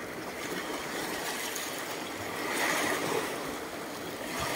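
Small sea waves washing over a pebble shore and lapping against the rocks, a steady wash that swells briefly about halfway through.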